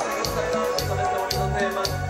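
Live band playing a steady Latin dance beat: an electric bass line, held keyboard notes and percussion ticking about twice a second.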